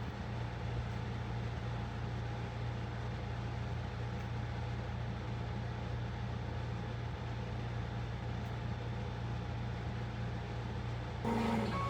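A steady low hum under an even hiss, unchanging, with no distinct events. Near the end music starts up.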